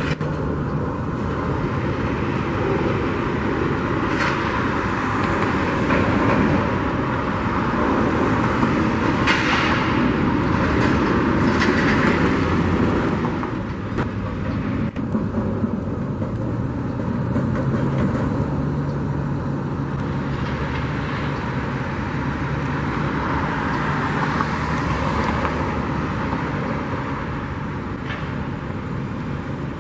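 Steady street and construction-site noise, with vehicle engines droning at a low pitch and a few brief clatters.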